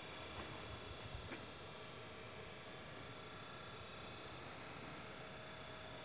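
Kabolite RC hydraulic excavator's pump running with a steady high-pitched whine and hiss as the boom and bucket are worked.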